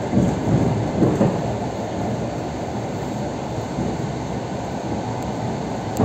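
Suburban electric train running at speed, heard from inside the carriage: a steady rumble of wheels on track. There are a few louder knocks in the first second and a half as it crosses a road level crossing.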